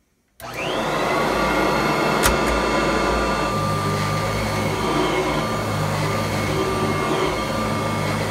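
Kirby Heritage II upright vacuum switched on about half a second in, its motor spinning up quickly to a steady high whine. It then runs on while being pushed over carpet, with a sharp click about two seconds in.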